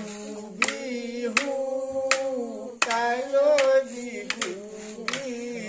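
Bihu song sung by voices in held, wavering notes, kept in time by a sharp hand clap about every three-quarters of a second.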